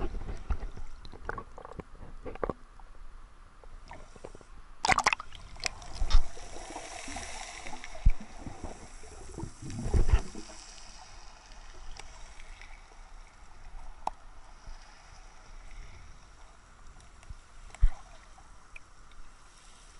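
Black Sea waves washing over a pebble beach, water sloshing and gurgling among the stones, with several dull thumps, the loudest about five, ten and eighteen seconds in.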